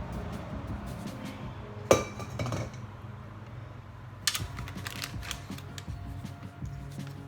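Background music with kitchen utensil clatter: a sharp knock about two seconds in and a clink a little after four seconds.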